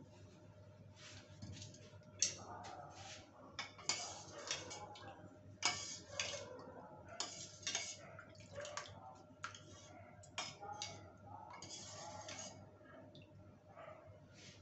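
Kitchen dishes and utensils clinking and clattering as they are handled, a string of irregular sharp clicks and knocks over a faint steady hum.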